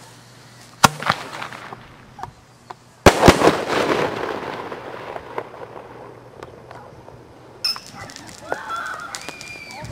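A consumer aerial firework shell fired from a mortar tube: a sharp launch bang about a second in, then a louder bang about two seconds later as the shell breaks, with a long fading tail after it.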